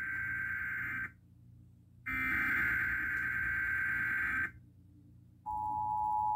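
Emergency Alert System test: a burst of SAME digital header data, a harsh buzzing squawk that ends about a second in, is followed by a second identical burst from about two to four and a half seconds. About five and a half seconds in, the steady two-tone EAS attention signal (853 and 960 Hz) starts.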